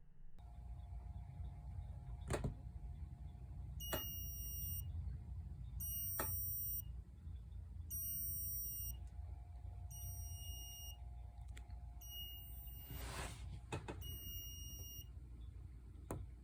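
Home-made Raspberry Pi alarm clock going off: a high electronic beep just under a second long, repeating every two seconds, six times in all. A few sharp clicks fall between the beeps.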